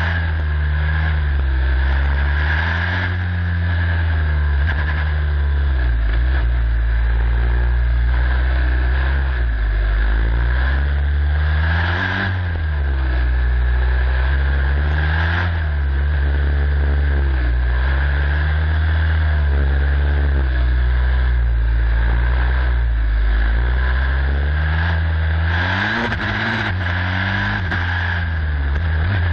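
Onboard sound of a turbocharged Formula SAE race car's engine driven hard, the revs climbing and dropping again and again as it accelerates, brakes and shifts gears.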